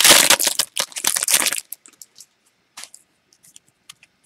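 Foil wrapper of a football trading card pack crinkling loudly as it is torn open, stopping suddenly about a second and a half in. A few faint ticks follow.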